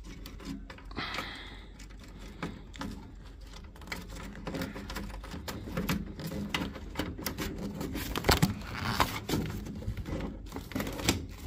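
Handling noise of wiring work: scattered light clicks, scrapes and rustles as cables are pushed and pulled through a rubber grommet in a boiler casing by a gloved hand, with a longer rustle about a second in and again near the end.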